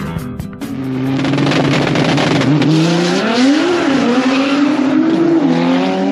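Drag-racing cars accelerating hard down the strip, engines revving up and dropping back several times as they shift through the gears. A few bars of background music play at the very start.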